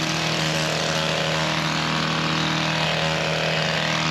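An engine running steadily at a constant speed, with a steady low hum.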